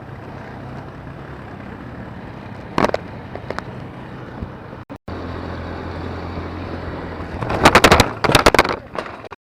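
ATV engine running steadily with a low hum, cut off briefly about five seconds in, then a cluster of loud knocks and rattles near the end.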